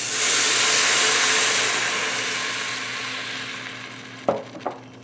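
Chicken stock poured into a hot Instant Pot on sauté mode, sizzling loudly as it hits the pot and fading away over a few seconds as it deglazes the rice, chicken and onion. A couple of short knocks near the end.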